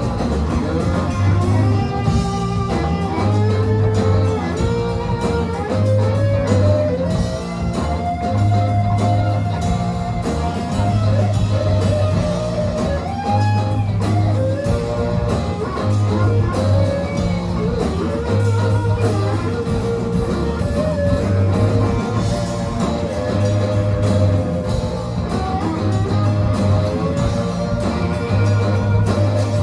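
Live rock band playing: an electric guitar lead with bent, gliding notes over drums and a low bass note repeating about every second and a half.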